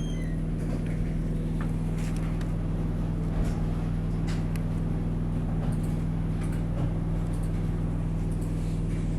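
Steady low electrical hum with background hiss, and a few faint clicks.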